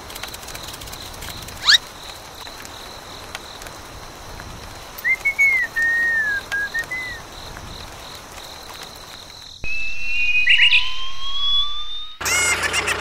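Bird-like whistled chirps: one quick rising chirp, then a short warbling phrase about five seconds in. A louder stretch of long, slowly rising whistle tones starts abruptly later on and stops just before music begins.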